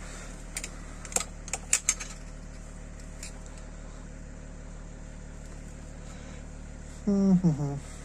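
A few light metallic clicks and taps as a steel vernier caliper is handled and set against the front brake disc and hub, over a steady low hum. The clicks fall in the first two seconds, and a short vocal sound with a falling pitch comes near the end.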